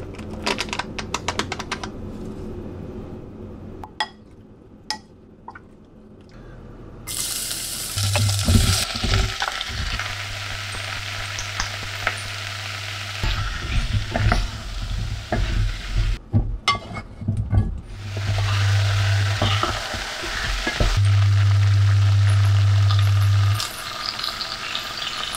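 Food frying and sizzling in a pot on an induction hob, stirred and scraped with a wooden spatula; light clicks and taps come before the sizzling starts. A low steady hum comes and goes and is loudest for a couple of seconds near the end.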